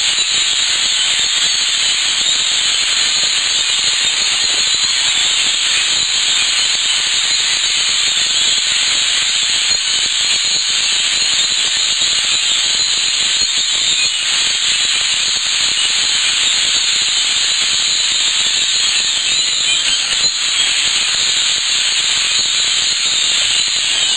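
A huge flock of migrating birds calling all at once, a loud, steady wall of chatter and squeaks with no single call standing out.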